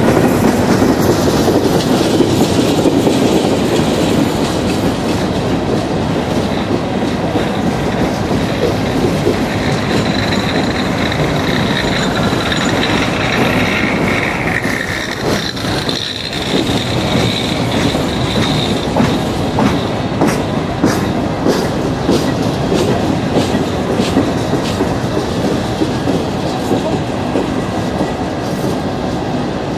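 Coal hopper cars of a freight train rolling steadily past close by: a continuous rumble and clatter of steel wheels on rail. A high wheel squeal rises about ten seconds in and fades by about twenty seconds. After that come sharper clicks and knocks from the wheels.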